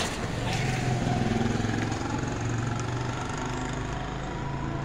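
Motorcycle engine running steadily with a low, even hum.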